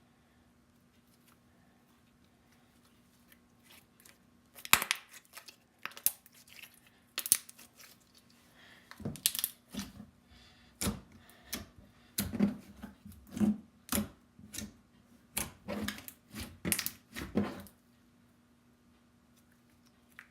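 Thick slime being squeezed and stretched by hand, making a run of sticky clicks, crackles and pops. It starts about five seconds in and stops shortly before the end.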